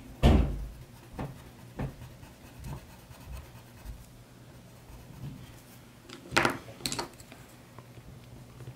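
Caran d'Ache Luminance coloured pencil scratching and rubbing lightly on paper as a blending layer is laid down. There is a knock just after the start and two louder clacks about six and a half to seven seconds in.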